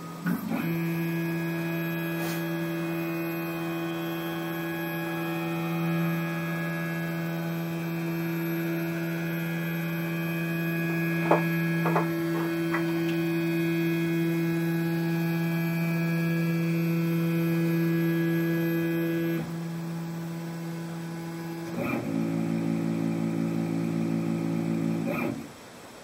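CNC router's stepper motors whining steadily as the gantry travels in a homing cycle, with two clicks about halfway through. The whine stops after about nineteen seconds; a shorter, pulsing stepper run follows near the end and stops abruptly.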